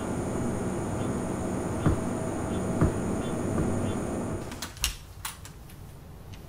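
Steady room hum with a couple of soft knocks, then a few seconds in a door shuts and a metal swing-bar door guard clicks as it is fastened: several sharp clicks close together and one more near the end.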